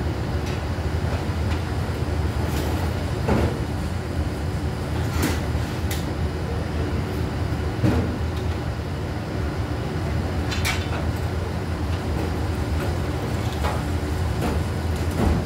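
Steady low machinery hum, with scattered knocks and clanks as metal equipment is handled, about five of them spread through the stretch.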